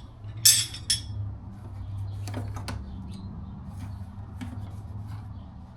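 Metal hand tools, the tyre bead breakers, being handled and set down: a sharp metallic clink about half a second in, then a few lighter clicks, over a steady low hum.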